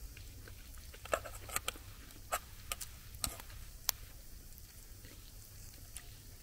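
Wood cooking fire crackling with scattered sharp pops, several loud ones bunched together between about one and four seconds in, then only a few faint ones.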